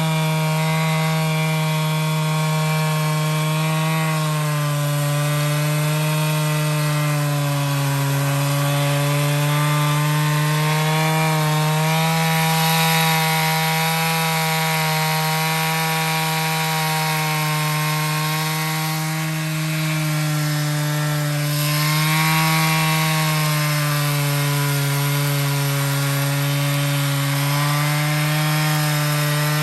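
Stihl MS461 two-stroke chainsaw running at high revs while ripping lengthwise through a log on a vertical mini-mill. The engine pitch sags and recovers several times as the chain loads up in the cut.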